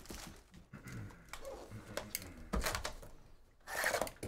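Cardboard card box being handled and opened: scattered knocks and short scrapes of cardboard, with a sharp knock in the middle and a longer, louder cardboard scrape near the end as the box is opened.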